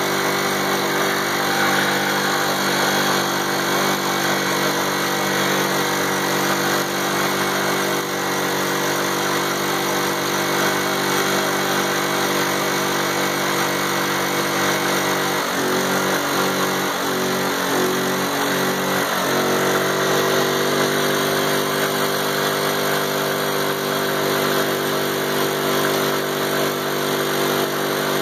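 Small 50cc ATV engine held at high revs in a chained burnout, rear tires spinning in place on wet ground. The note holds steady, breaks into a choppy stutter for a few seconds past the middle, then settles back to a steady note.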